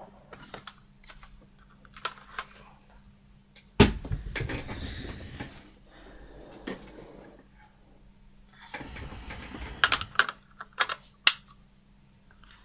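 Handling noises: scattered sharp clicks and taps, with two stretches of rustling, one starting about four seconds in with a loud click and one near nine seconds followed by a quick run of clicks.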